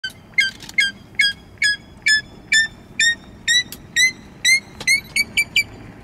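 Buff-crested bustard calling: a series of about fifteen short, clear whistled notes, about two a second, coming faster and creeping up in pitch near the end.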